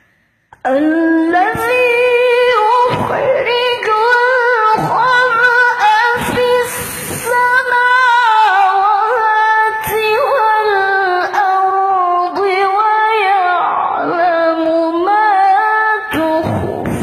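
A woman's voice reciting the Qur'an in the melodic qira'ah style, long, ornamented held phrases that start about half a second in, broken by a few short pauses for breath.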